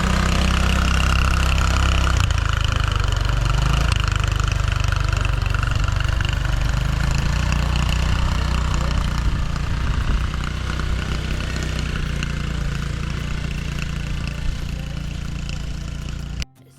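ATV engine running at a steady, moderate speed, then cutting off abruptly near the end.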